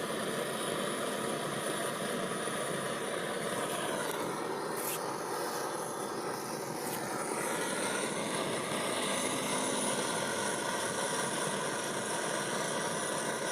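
A steady mechanical hum of a running engine or motor, its pitch dipping and then climbing back about four to eight seconds in.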